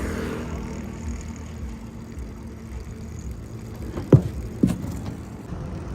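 Low steady engine rumble, with two sharp knocks about four seconds in, half a second apart.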